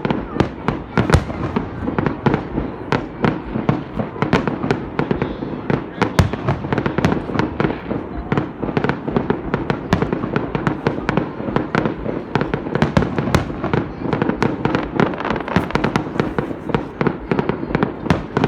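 Fireworks display going off in a dense, continuous barrage: sharp bangs and cracks, several a second, over a rumbling roll of overlapping reports.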